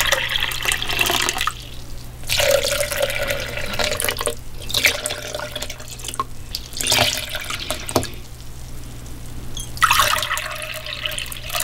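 Water poured from a glass pitcher into a stainless steel measuring cup and tipped from the cup into a glass bowl of sourdough starter, in several separate pours with short pauses between.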